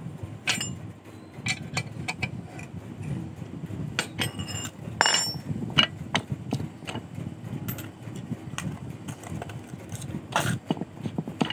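Irregular metallic clicks and clinks of metal parts handled at a bench vise, one of them ringing briefly about five seconds in, over a steady low rumble.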